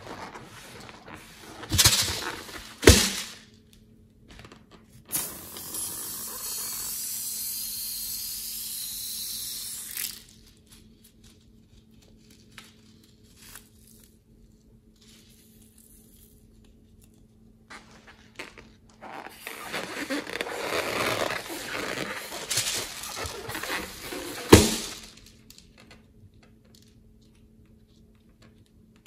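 A rubber modeling balloon handled and emptied over a glass bowl of glue: sharp snaps about two and three seconds in, a steady hiss for about five seconds, then a stretch of crackling rustle with a loud snap near the end.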